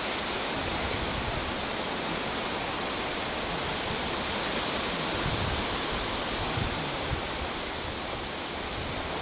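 A steady, even hiss of noise, with some uneven low rumbling and no distinct events.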